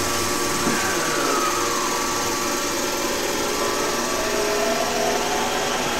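Hokuetsu Express HK100-series electric train moving alongside the platform: a steady rumble of wheels and running gear with an electric motor whine. The whine glides down about a second in, then rises steadily in pitch in the second half as the train gathers speed.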